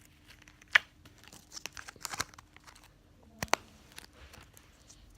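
Handling noise of plastic slime containers and slime: scattered crinkling crackles and clicks, the sharpest about three-quarters of a second in.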